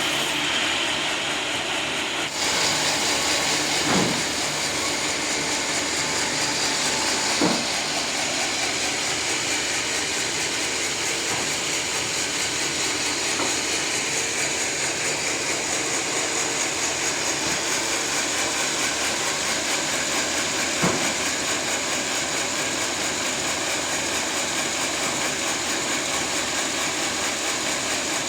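Sawmill saw running steadily through a teak log, a continuous hissing machine noise with a few short knocks. The sound shifts abruptly about two seconds in.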